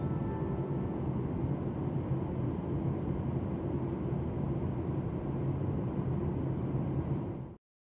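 Steady in-flight cabin noise of a jet airliner: an even rush of engine and airflow noise with a low hum, cut off abruptly near the end.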